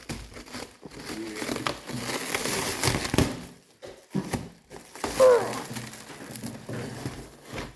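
Packaging wrap crinkling and rustling as it is pulled and handled, with irregular crackles and a few knocks, busiest in the first half.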